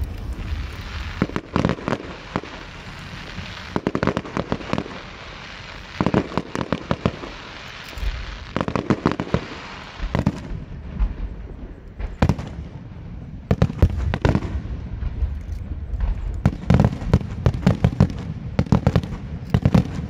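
Fireworks display: clusters of sharp bangs and crackles from launches and shell bursts every second or two, over a low rumble, growing denser near the end.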